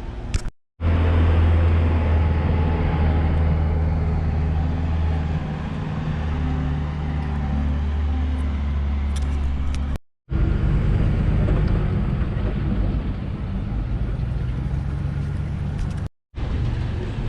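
An engine running with a steady low hum, heard from on board, cut off abruptly three times and resuming after each cut.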